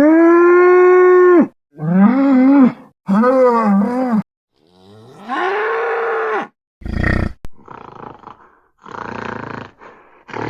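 Cartoon bull sound effects: four separate moo-like bellows, the first long and steady, the next two shorter with a wavering pitch, the fourth rising and then held. About seven seconds in comes a short loud blast, followed by rough, breathy grunts without a clear pitch.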